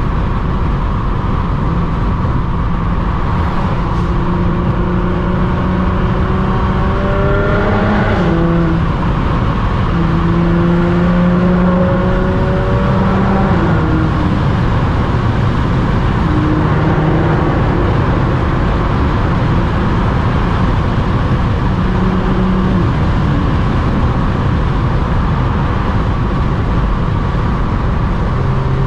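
Audi S4's supercharged V6 pulling under load, its pitch climbing steadily for several seconds and then falling sharply about eight seconds in, followed by stretches of steady running, over a constant haze of road and tyre noise.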